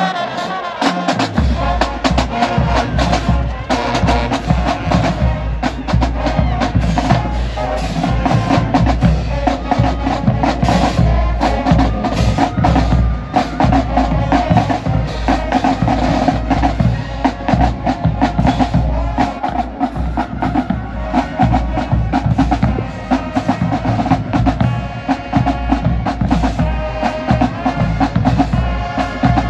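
A marching band playing loudly: a drumline of snares and bass drums beats a steady, driving rhythm under held horn notes.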